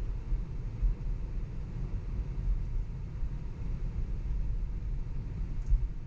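Steady low road and tyre rumble heard inside a moving Tesla electric car, with no engine note, and two brief louder bumps, about a second in and near the end.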